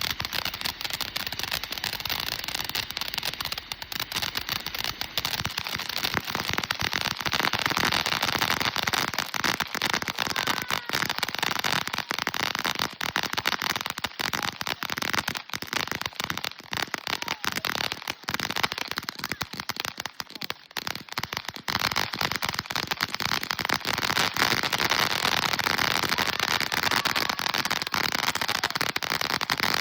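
Backyard consumer fireworks crackling in a rapid, dense stream of small pops that keeps going throughout.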